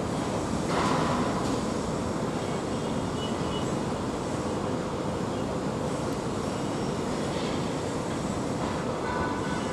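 Steady rushing noise of distant traffic, with a slight swell about a second in.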